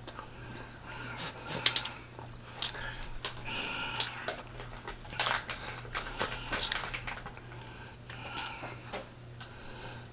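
Irregular clicks and smacks close to the microphone, the mouth and hand sounds of someone eating pig feet, over a steady low hum.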